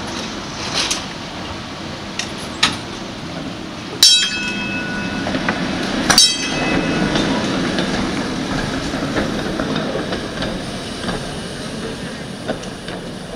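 A TTC PCC streetcar pulling away from a stop: a few sharp metallic clunks, two loud clangs about two seconds apart that ring on, then the steady rumble of its motors and steel wheels on the rails as it gets under way, fading slowly as it draws off.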